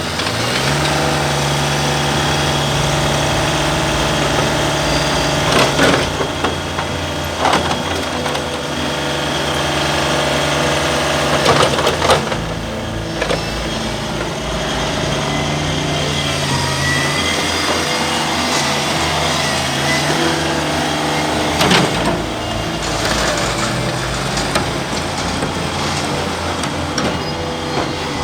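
Ditch Witch SK800 mini skid steer's engine running under work, its pitch stepping up and down as it is throttled, with a few sharp metal clanks.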